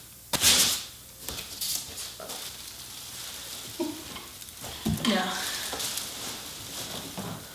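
Cardboard and plastic packaging rustling and scraping as a boxed grill is tugged at, with a louder burst of rustle just after the start.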